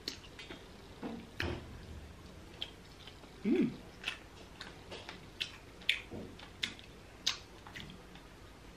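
Close-up eating sounds: chewing grilled mackerel with scattered short wet clicks and mouth smacks, while fingers pick thin bones out of the fish. A brief low hum of the voice comes about a third of the way in.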